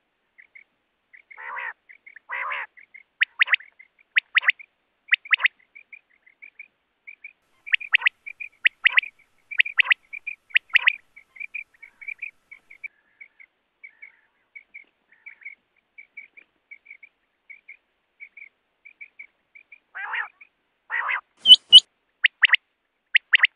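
Common quail (Coturnix coturnix) calling: a long run of short, quick, high piping notes repeated over and over, with clusters of louder sharp calls and a few lower, rougher notes among them. A single loud, sharp crackle stands out about 21 seconds in.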